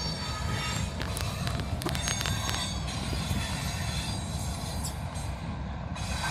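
Freight train cars rolling past close by: a steady low rumble of wheels on rail with thin, high-pitched wheel squeal. A cluster of sharp clicks and squeaks comes between about one and three seconds in.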